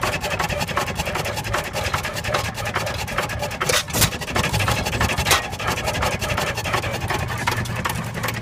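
Bates & Edmonds stationary gas engine running close up: a fast, steady mechanical clatter of its valve gear and linkage, with two sharper, louder cracks about four and five seconds in.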